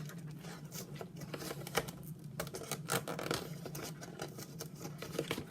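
Thin plastic film lid and plastic tray of a TV dinner crinkling and crackling in irregular clicks as fingers pick at the film, which is not peeling off. A steady low hum runs underneath.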